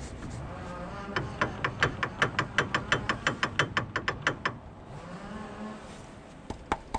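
Rapid clicking from a Daihatsu Esse's front drive shaft, about five or six clicks a second for some three seconds and then a couple of single knocks, over the steady running noise of the car. It is the noise heard in corners, the sign of a worn drive shaft joint.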